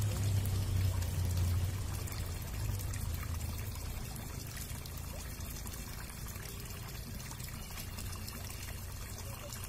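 Water trickling steadily, with a low rumble that fades out over the first two or three seconds.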